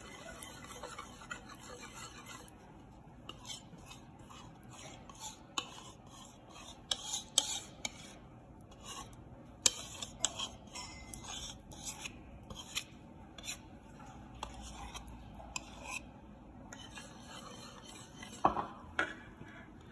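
Steel wire whisk beating a runny mix of oil, orange juice and condensed milk in a wooden bowl. It makes a faint steady swish, with many irregular light clicks as the wires hit the bowl.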